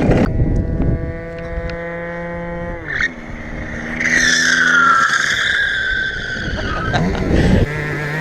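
Yamaha Aerox scooter's Minarelli two-stroke engine held at high, steady revs in a burnout while the rear tyre spins and squeals on the ground. The engine pitch drops about three seconds in, then a loud tyre squeal with a wavering pitch rises about a second later and fades, and the engine settles to a steady lower note near the end.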